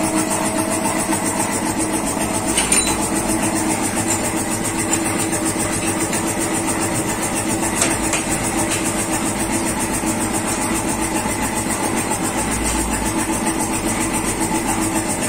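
A motor running steadily with a constant hum and hiss. Two brief metallic knocks come about three and eight seconds in.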